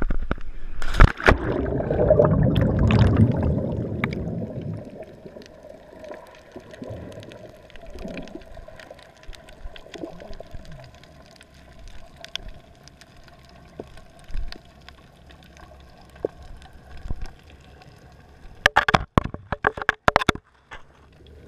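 A GoPro plunging into the sea with a cliff jumper: a splash about a second in, then a few seconds of rushing, bubbling water. The camera then sinks and the sound turns to a muffled underwater hum with faint ticks, until a burst of sharp knocks and clatters near the end.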